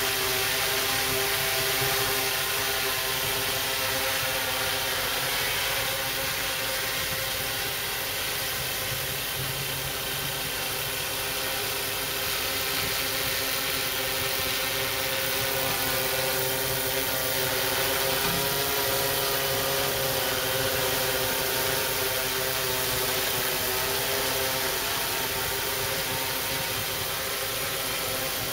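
Yuneec Typhoon Q500 4K quadcopter hovering, its four propellers making a steady buzzing hum. The pitch wavers slightly as the motors adjust.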